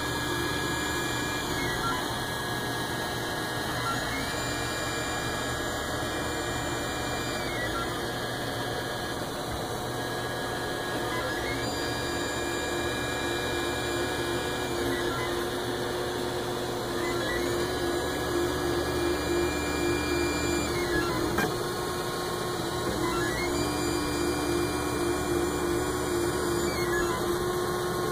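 ORD Bot 3D printer printing. Its stepper motors whine in steady tones whose pitch glides up and down as the moves speed up and slow down.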